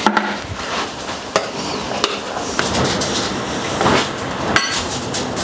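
Metal spoon stirring thick porridge oats in a glass bowl, with several sharp clinks of the spoon against the glass; one clink about four and a half seconds in rings clearly.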